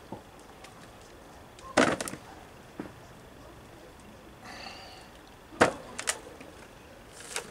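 Hands digging and raking through loose compost in a plastic storage box: a few short rustling scrapes, the loudest about two seconds in and again just before six seconds.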